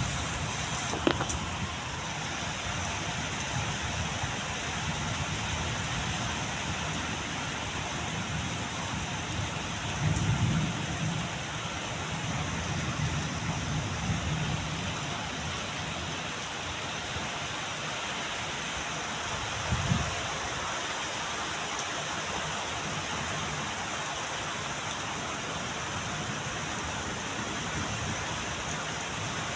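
Heavy rain falling steadily, with a few low rumbles swelling up about ten and twenty seconds in.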